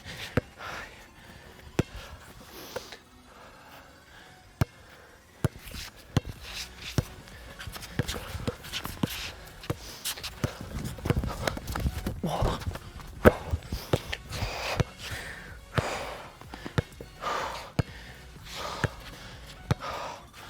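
Basketball bouncing on an outdoor court in sharp, irregular knocks, with running footsteps and a player's heavy, out-of-breath breathing.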